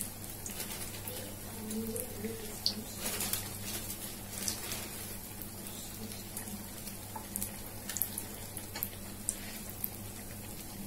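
Knife cutting through slices of bread against a steel bowl: scattered faint clicks and scrapes over a steady low hum.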